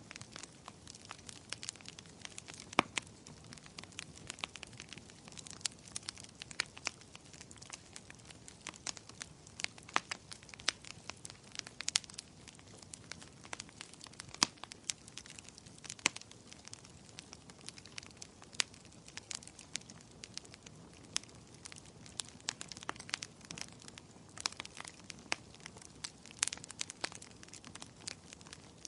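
Firewood burning in a fireplace, crackling: irregular sharp pops and snaps over a faint steady hiss of flames.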